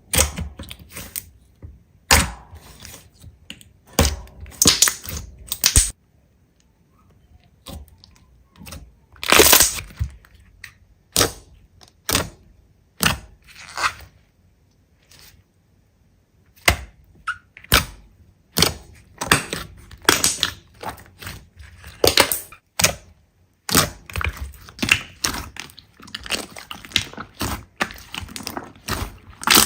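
Slime being squeezed and pressed, giving irregular crunching and crackling pops with a few short pauses.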